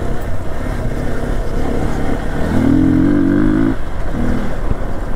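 Motorcycle engine running under way on a rough track, with wind and road noise on the rider's microphone. The engine note rises briefly in the middle.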